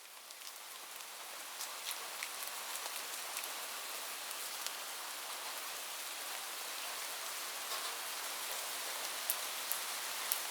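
Rain falling steadily as an even hiss, with scattered sharp drop ticks. It fades in over the first couple of seconds.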